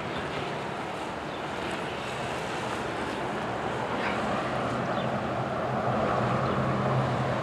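Steady low rumble of distant motor vehicles, slowly growing louder, with a low hum that strengthens in the second half and some wind on the microphone.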